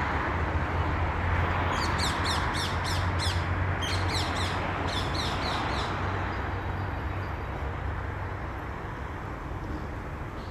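Rose-ringed (Kramer's) parakeet giving a rapid run of shrill, falling screeches, about three or four a second for some four seconds, over a steady low rumble that fades toward the end.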